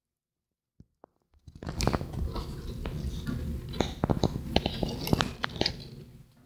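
Handling noise on the recording phone or camera as it is moved and zoomed: dense rubbing and rustling with many sharp clicks, starting about a second and a half in and fading out near the end.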